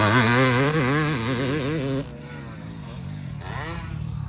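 Dirt bike engine revving up and down in quick surges, its pitch wavering several times a second as it rides rough track. About two seconds in the sound drops sharply, and near the end a fainter engine climbs in pitch.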